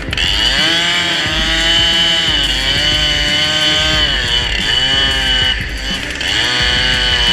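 Chainsaw engine running at high revs. Its pitch sags and recovers about three times.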